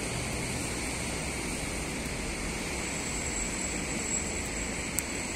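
Steady hiss of heavy rain falling, with a faint high whine coming in about halfway and one sharp click near the end.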